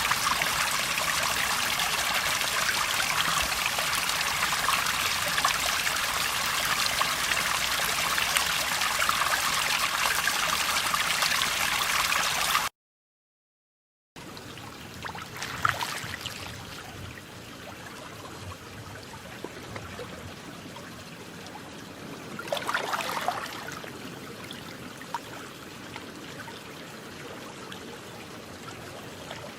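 Water sounds: a steady, dense rush of trickling water that cuts off abruptly to about a second of silence, then a quieter recording of water gently lapping, with a few louder swells.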